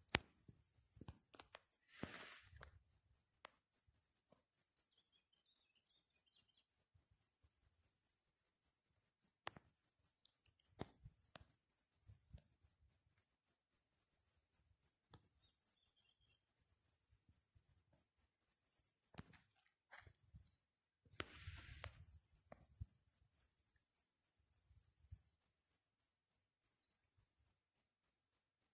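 Faint insect chirping: a steady, fast train of even, high-pitched chirps, cricket-like. Two short bursts of rustling noise come about two seconds in and again past twenty seconds.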